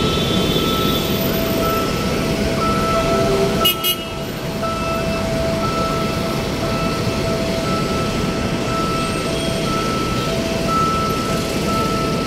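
Steady road traffic noise, with a high electronic tone sounding on and off throughout.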